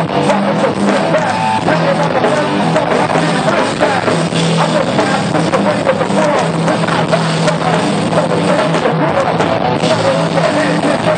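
Rock band playing live, with a drum kit and dense, loud music that never lets up.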